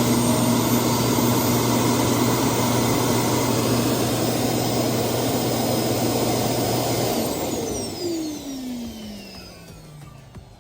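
Roomba S9 auto-empty Clean Base suction motor running with a steady rush of air and a low hum, then switching off about seven seconds in and spinning down with a falling whine. It runs normally, the dog-toy squeaker that was jamming it having been removed.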